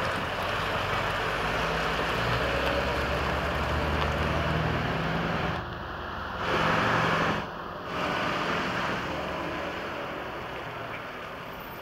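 Heavy lorry diesel engine running at low speed as an articulated lorry manoeuvres. The sound breaks off abruptly twice near the middle and fades over the last few seconds.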